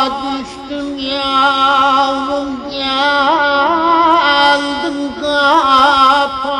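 Turkish folk music, instrumental passage: an ornamented melody line with frequent turns and trills over a steady low drone.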